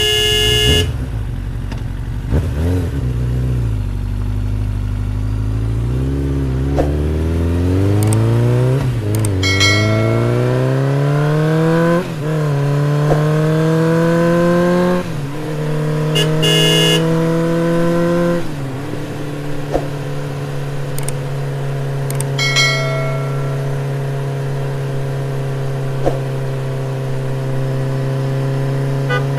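Motorcycle engine sound accelerating through the gears: the pitch climbs, drops back at each of about four shifts, then settles into a steady cruising drone. Three short horn beeps come in partway through.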